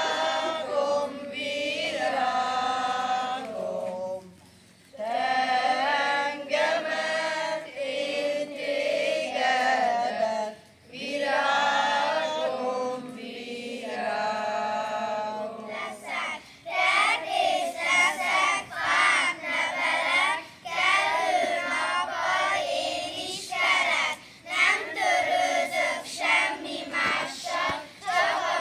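A group of schoolchildren and a woman singing a song together in chorus, in sung phrases with short breaths between them. About halfway through, a different song starts, sung in shorter, choppier phrases.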